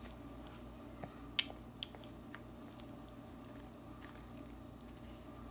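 Faint wet mouth sounds of a baby gnawing and sucking on a soft piece of peach: a few small smacking clicks over a steady low hum.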